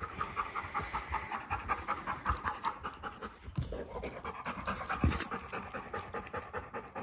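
Golden retriever panting rapidly and steadily, out of breath from ball play. Two soft knocks come in the middle, the second the loudest sound.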